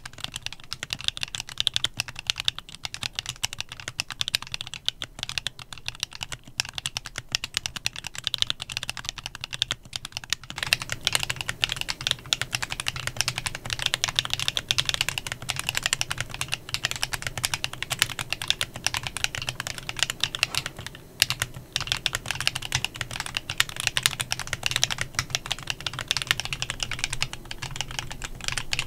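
Continuous fast typing on a Klein Mont Cervin custom mechanical keyboard with factory-lubed Candy Vanilla switches: a dense stream of key clacks, with a brief pause about 21 seconds in.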